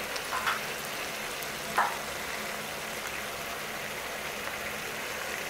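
Minced beef and tomatoes sizzling steadily in a frying pan over a faint low hum, with two short clicks in the first two seconds.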